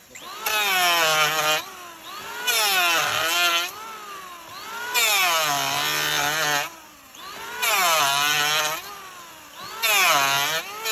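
A motorised wood-cutting power tool revving up and falling back in repeated bursts about every two seconds. A rasping cutting noise rides on each peak.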